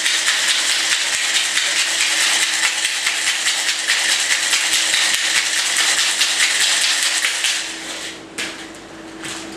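Ice rattling hard inside a Boston shaker, metal tin over mixing glass, as a cocktail is shaken. The rattle stops about eight seconds in and is followed by two knocks.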